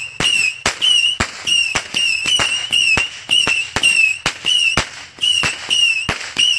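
Consumer firework cake (a boxed repeater) firing a rapid string of shots. Each shot is a sharp crack paired with a short high whistle, two or three a second without a break.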